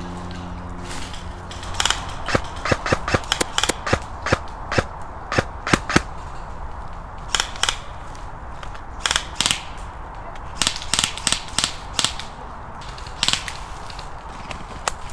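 ASG Scorpion Evo airsoft electric gun firing quick single shots. A rapid string starts about two seconds in, then short clusters of shots follow with pauses between them.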